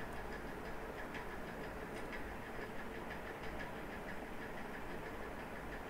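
Steady background hum and hiss of a room recorded through a computer microphone, with faint, irregular small clicks scattered through it.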